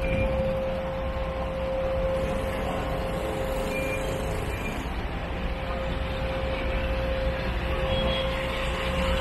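An engine running with a steady low rumble and a constant whining tone that fades for a moment around the middle.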